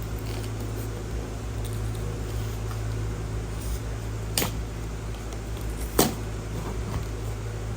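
Packaging handling during an unboxing: two sharp clicks about four and a half and six seconds in, the second louder, with faint light ticks over a steady low hum.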